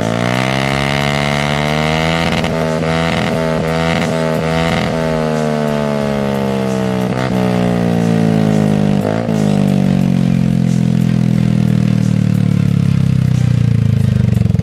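Yamaha Aerox 155 scooter's single-cylinder engine running through an aftermarket muffler. It revs up at the start with a few quick throttle blips, then falls slowly and steadily in pitch as the revs drop.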